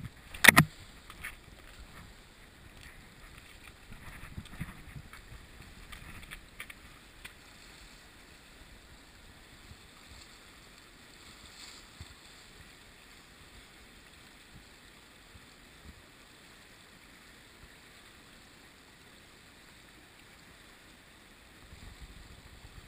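Steady rush of a river flowing over rocks, heard as an even hiss. A single sharp knock about half a second in, with a few fainter knocks a few seconds later.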